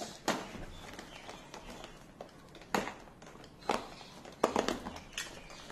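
Small cardboard box being handled and cut open with a box cutter: a handful of sharp clicks and taps with light rustling of cardboard and plastic wrap.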